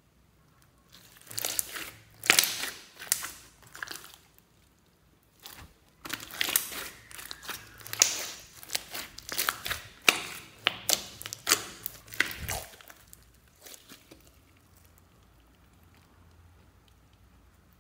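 Hands squeezing and kneading a large mass of sticky mixed glitter slime, with wet crackling and popping as air pockets squash out. The crackling comes in two spells, about a second in and again from about six seconds, and dies away after about thirteen seconds.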